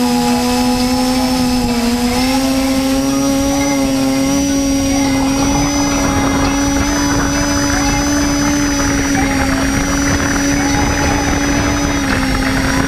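FPV quadcopter's brushless motors and propellers whining at a steady pitch, heard from the onboard camera, the pitch stepping up slightly about two seconds in. A rushing noise builds up under the whine from about five seconds in.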